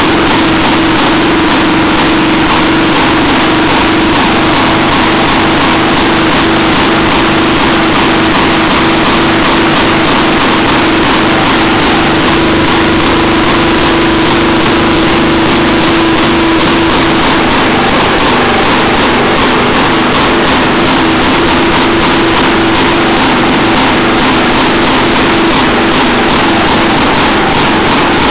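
An antique 1920s–early 1930s Jacobsen two-stroke engine running steadily at an even speed.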